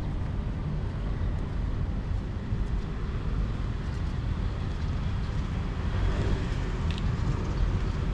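Outdoor ambience of road traffic: a steady low rumble of passing vehicles, swelling a little about six seconds in.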